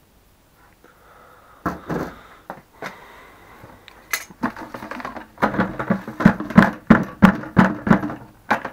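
Plastic buckets coated with wax residue being handled, with scattered knocks and scraping. Then comes a quick run of loud knocks, about three a second, as a bucket is banged.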